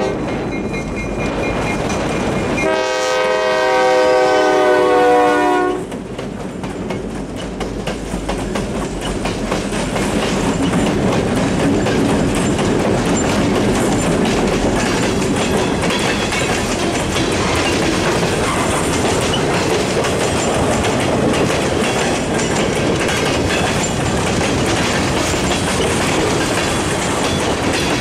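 Diesel freight locomotive's air horn, several notes sounding together in a chord: the end of one blast right at the start, then a long blast of about three seconds beginning near three seconds in, over the rumble of the passing lead units. Then a string of tank cars and covered hoppers rolls past close by with a steady rumble and clatter of wheels over the rail.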